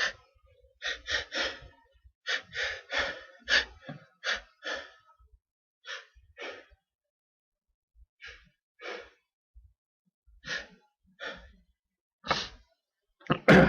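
Repeated short, catching in-breaths of a person whose sneeze is building up: the hitching breaths before a sneeze. There are about twenty of them, coming quickly at first and then further apart, with one louder, sharper burst near the end.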